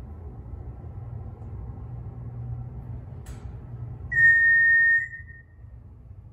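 MEI hydraulic elevator car descending with a low steady rumble, a click about three seconds in, then a single high electronic beep held for about a second as the car reaches the next floor; the ride rumble dies away after it.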